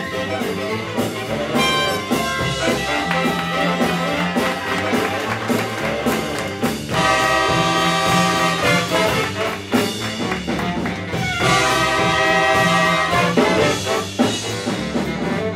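Big band playing swing jazz live, with trumpets, trombones and saxophones over a string bass. The horns hold loud sustained chords twice, about seven seconds in and again about eleven seconds in.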